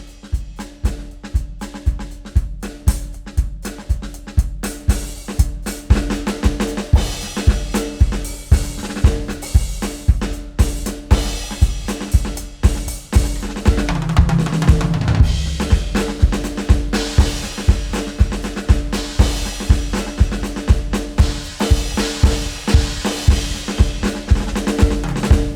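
Music soundtrack driven by a drum kit: a steady kick beat at about two beats a second, with snare and cymbals over sustained low notes. About halfway through, a low note slides downward.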